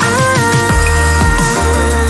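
Electronic background music with a deep bass line, held synth chords and a steady beat.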